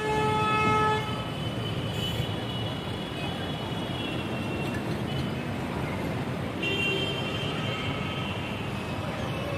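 Street traffic running steadily, with a car horn held for about a second at the start, then fainter high tones over the traffic noise.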